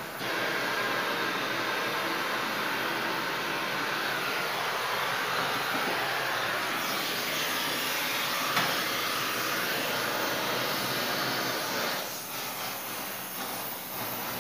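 Electric arc welding on a steel heating pipe: a steady hiss that starts suddenly and stops about twelve seconds in.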